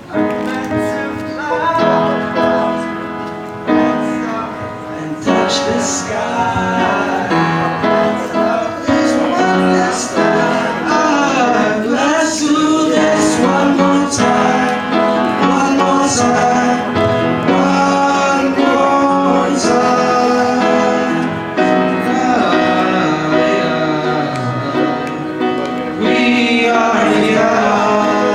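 Male voices singing a pop medley with musical accompaniment, starting abruptly at the outset.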